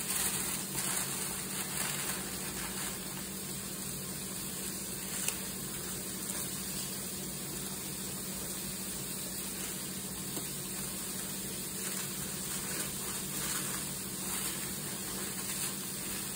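Tissue paper rustling and crinkling as it is pulled out of a gift bag, busiest near the start and again a few seconds before the end, over a steady background hiss and low hum.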